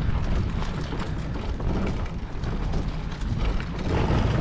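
Loaded fishing kayak being pushed down a grooved concrete boat ramp: a continuous rolling rumble and rattle of the boat and its gear, with many small clicks and wind on the microphone. Near the end a washing of water joins in as the kayak reaches the water.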